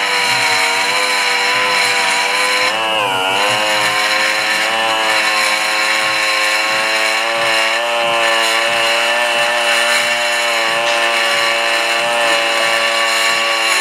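Die grinder with a long, skinny bit running at high speed, grinding inside the port of a cast-iron Chrysler 440 cylinder head to radius off a ridge. It is a steady high whine whose pitch sags briefly about three seconds in as the bit bites into the metal.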